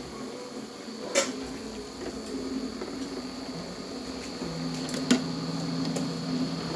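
Toroidal transformer winding machine running, its shuttle ring winding copper wire onto a toroid core: a steady motor hum with a high whine, getting louder about four and a half seconds in, and two sharp clicks, about a second in and near five seconds.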